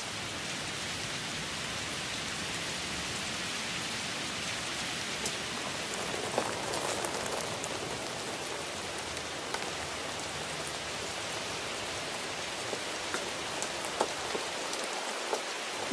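Steady rain falling, an even hiss with a few sharper ticks of single drops.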